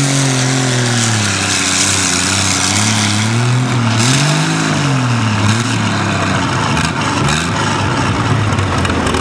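Case 600 pulling tractor's engine running loud and being revved up and down. Its pitch dips about a second in, climbs to a peak around four and a half seconds, falls again, then turns rougher and less even.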